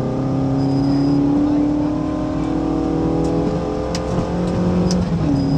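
Mitsubishi Colt Lancer A73's 1882 cc Saturn 4G32 inline-four rally engine, heard from inside the cabin, pulling hard under acceleration. Near the end the pitch drops sharply as the driver shifts up a gear. A couple of sharp ticks come through toward the end.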